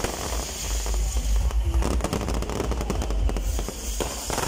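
Fireworks crackling: a dense, irregular run of small sharp pops and bangs, over a steady low rumble.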